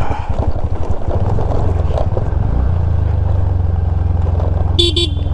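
Scooter engine running at low speed on a rough gravel track, its low hum mixed with rattle from the bumps, settling into a steady low note about halfway through. A short high-pitched sound comes near the end.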